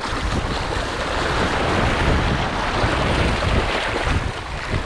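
Rough surf washing over a half-submerged rock, foaming water rushing and churning, with wind rumbling on the microphone.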